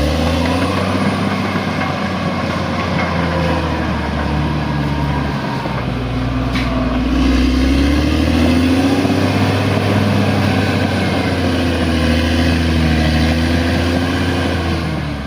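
Bulldozer's diesel engine running under load, its pitch rising and dipping as it works, with one sharp click about six and a half seconds in.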